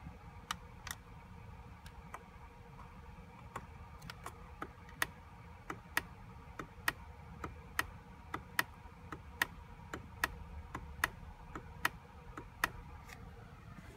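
Light, sharp clicks of a steering-wheel control switch on a 2017 Nissan Armada, pressed over and over at an uneven pace of about two a second to page through the instrument-cluster display.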